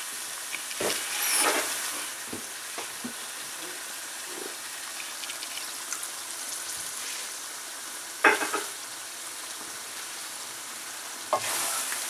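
Lamb and yogurt masala sizzling in a metal karahi while a metal spatula stirs and scrapes it, with scattered clacks of the spatula against the pan. The loudest clack comes about eight seconds in.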